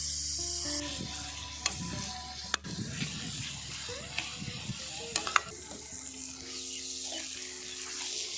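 Meat sizzling as it fries in a pan for kanti, a steady hiss, with a few sharp clicks of a utensil striking the pan as it is stirred.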